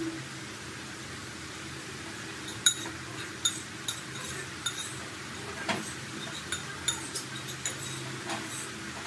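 French-fry potato sticks deep-frying in hot oil: a steady sizzle, joined a few seconds in by irregular sharp pops and crackles, about two a second.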